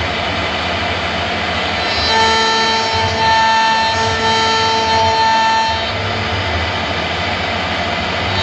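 CNC wood router running, with a steady spindle whine over the noise of the bit cutting wood; the whine's tones drop in and out a couple of seconds in.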